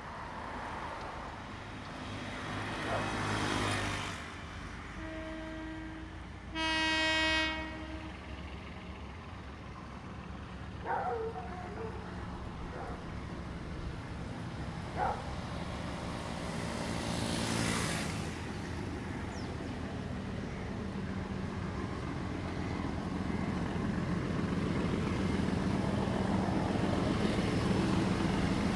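A Sri Lankan diesel train's horn sounds a single loud blast of a little over a second, about seven seconds in, just after a faint short toot. A low engine rumble then builds steadily louder toward the end as the train draws near; two brief rushing noises pass earlier.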